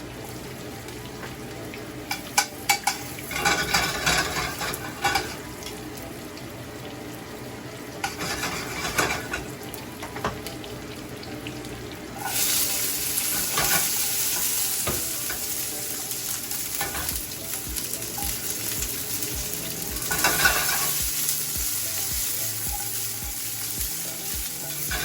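Clinks and scrapes of a utensil in a frying pan, then about twelve seconds in a sudden loud sizzle as food goes into the hot oil, continuing as a steady frying hiss while green beans are sautéed and stirred.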